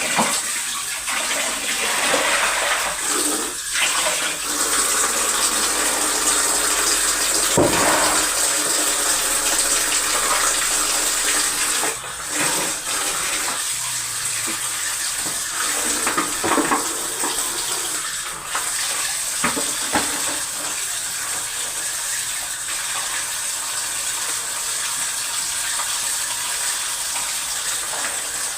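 Water running steadily from a tap, with a few short knocks.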